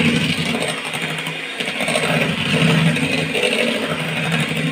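Electric hand mixer running at its lowest speed, its beaters blending oil into whipped egg-and-sugar sponge-cake batter in a steel bowl. The motor makes a steady hum.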